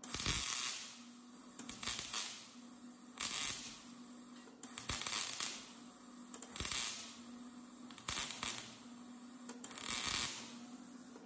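Wire-feed welder laying a row of seven short tack welds on thin truck-bed sheet metal. Each weld is a burst of arc noise about half a second long, coming roughly every one and a half seconds, over a steady low hum.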